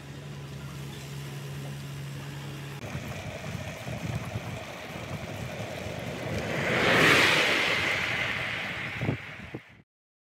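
A steady low hum, then from about three seconds in wind rushing and buffeting the microphone while riding a bike along a road. The rush swells to a loud whoosh around seven seconds in and fades, with a short thump, before cutting off suddenly near the end.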